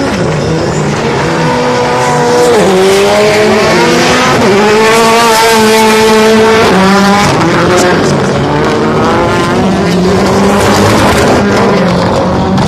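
Ford Fiesta rallycross Supercar's turbocharged four-cylinder engine running hard at race pace. It rises in pitch between gear changes and drops sharply at shifts about two and a half seconds and seven seconds in, then settles to a steadier note as the car pulls away.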